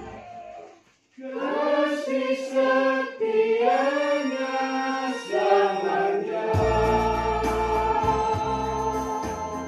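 Small mixed choir singing in several parts, starting after a brief break about a second in. A deep bass accompaniment joins about two-thirds of the way through.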